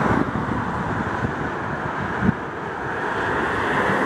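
Two-car Tatra T3SU tram train running along the track, with wind buffeting the microphone. A single sharp click comes a little over two seconds in, and the running noise swells near the end.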